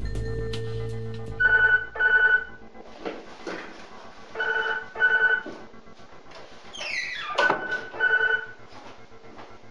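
Desk telephone ringing with the British double ring, three pairs of rings about three seconds apart. A brief falling sweep comes just before the third pair.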